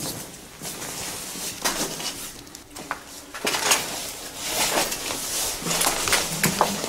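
Irregular footsteps scuffing and crunching on a gritty concrete floor, with scrapes and clicks about once a second, mixed with handling noise from a handheld camera.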